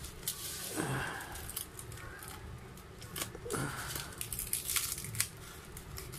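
Scissors snipping through a plastic-and-foam packaging wrap, with sharp cutting clicks and crinkling of the plastic.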